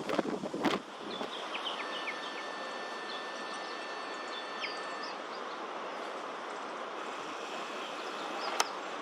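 Strong wind buffeting the microphone in loud gusts for about the first second, then a steady rushing hiss of wind. A few faint high chirps sound in the middle, and a single sharp click comes near the end.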